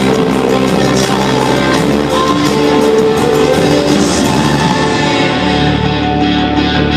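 Loud band music with singing, a full rock mix; the bass and low end swell up about five seconds in.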